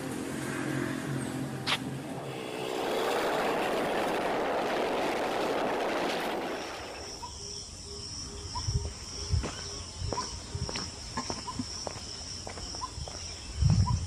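A steady low hum, then a broad rush of noise, like a vehicle passing. About halfway in the sound changes to a high insect trill pulsing about twice a second, with footsteps on paving and faint short chirps.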